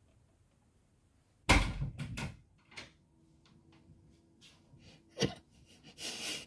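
A single loud thump about a second and a half in, followed by a few lighter knocks and clicks and a brief rustle near the end.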